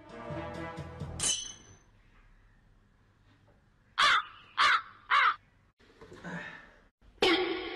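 Three short, harsh caw-like calls about half a second apart, each rising then falling in pitch. Music comes in near the end.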